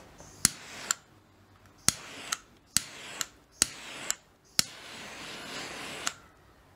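Handheld butane blowtorch fired in five short bursts: each starts with a sharp ignition click, hisses with its flame, and shuts off with another click. The first four bursts last about half a second each, and the last runs for about a second and a half.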